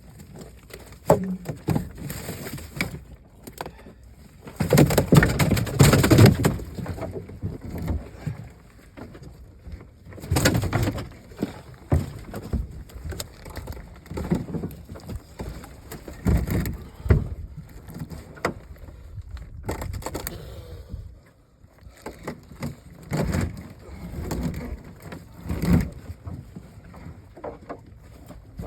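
Irregular knocks, thumps and rustling from nets and gear being handled in a fishing boat. The loudest part is a longer noisy burst about five seconds in.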